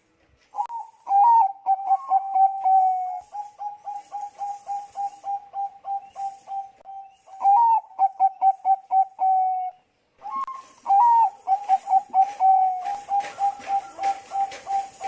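Bangkok-type zebra dove (perkutut bangkok) singing its stuttering cooing song in two long bouts, split by a short pause about two-thirds of the way in. Each bout opens with a couple of louder, higher notes, then runs into a fast string of short coos at about three a second.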